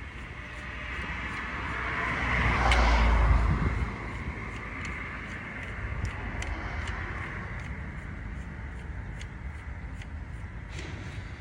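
A car passing close by on the road, its noise swelling to a peak about three seconds in and then falling away to steady background traffic. Faint regular ticks run underneath.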